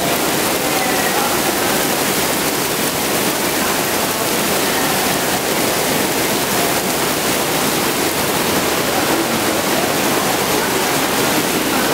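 Dense artificial rain of the Rain Room installation pouring from the ceiling onto the floor grating: a steady, even hiss of falling water.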